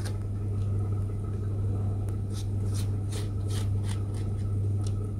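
A pastry brush stroking and dabbing beaten egg wash onto soft dough in a non-stick baking pan, heard as soft, irregular swishes and scratches. A steady low hum runs underneath and is louder than the brushing.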